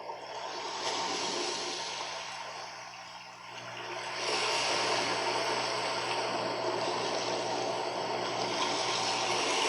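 Harsh noise music played live: a dense wash of hissing, rushing electronic noise over a steady low hum, jumping louder about four seconds in.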